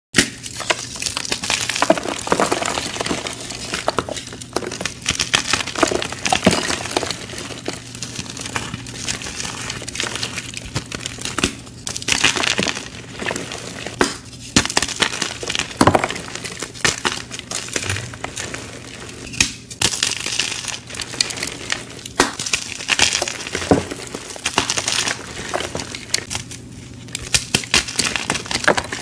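Dyed gym chalk blocks crushed and crumbled in the hands: an irregular run of dry crunches and crackles with sharper snaps as chunks break apart.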